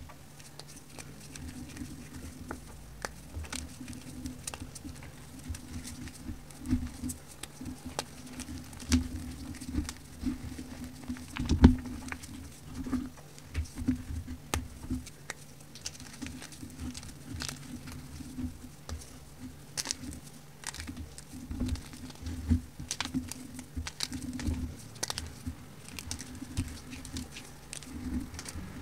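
Fingers crumbling and crushing pressed powder blocks into a tub of loose powder: a run of small crunches and crackles, with one louder crunch about twelve seconds in.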